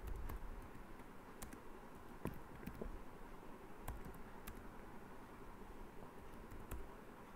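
Computer keyboard typing: about ten slow, irregularly spaced key presses over faint room hiss.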